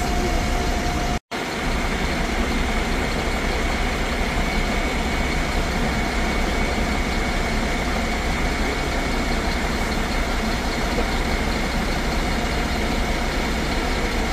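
An engine idling steadily, with a faint constant high whine over it. The sound cuts out for an instant about a second in.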